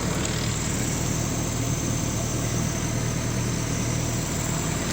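Sany SY55C mini excavator's diesel engine running steadily.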